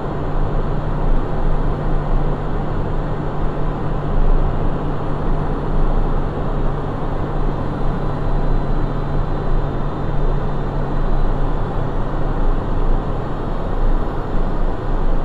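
Steady cockpit noise of a Cessna Citation 501 twin-turbofan jet on short final, a rushing airflow and engine noise with a low steady hum underneath. The hum drops away about twelve seconds in.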